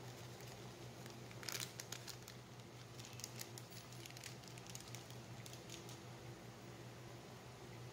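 Pot of beef broth at the boil: faint, scattered crackles and ticks of bubbling over a low steady hum.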